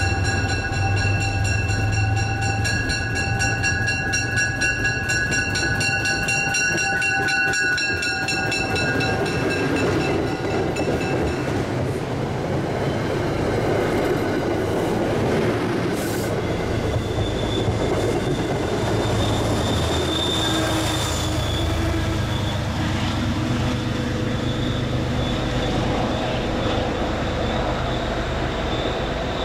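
MBTA push-pull commuter rail train passing along a station platform. A bell rings rapidly as the cab car approaches and fades after about ten seconds. Then come the rumble and clicking of bi-level coaches rolling by, with a high wheel squeal in the second half.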